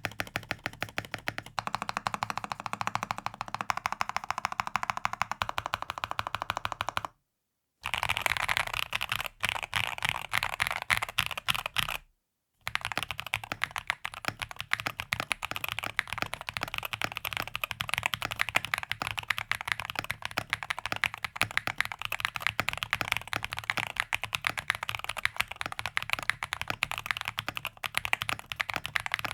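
Fast, continuous typing on a Rexus Daxa M61/M64 60% mechanical keyboard, a dense stream of key clacks. It cuts to dead silence twice for about half a second, about 7 and 12 seconds in, then resumes.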